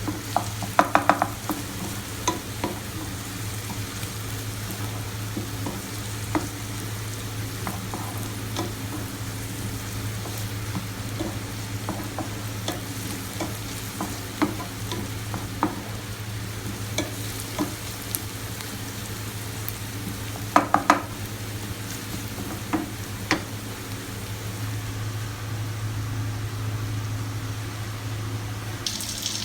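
Food sizzling in a frying pan while a utensil stirs it, with scattered clinks and scrapes against the pan and a few louder clusters of clinks about a second in and about two-thirds of the way through.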